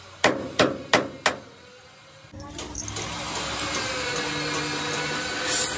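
Four hammer blows on metal, each ringing briefly, about a third of a second apart. After a short pause a motor-driven tool starts and runs steadily, with a brief hiss near the end.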